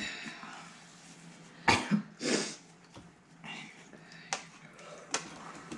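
A person coughing, two sharp coughs about two seconds in and a softer one after, with a few light clicks of utensils stirring instant noodle cups near the end.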